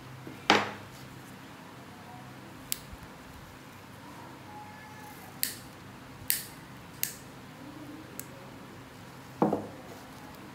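Nail nippers snapping through a thick, horn-like overgrown toenail: about six sharp cracks spread out, the loudest about half a second in and another near the end.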